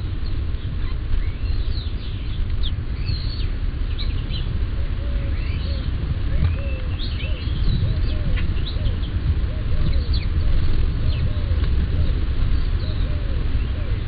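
Small birds chirping with many short, quick calls. From about five seconds in, a lower call repeats about twice a second. A steady low rumble runs underneath, and the sound is dull, with no highs, as picked up by a trail camera's microphone.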